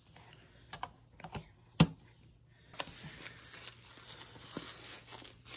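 A few light clicks and one sharp click about two seconds in, then a disposable diaper rustling and crinkling as it is unfolded and fitted on a baby.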